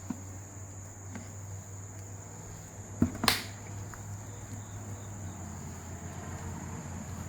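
Steady high-pitched insect trill, crickets by its sound, over a low hum, with two sharp knocks about three seconds in.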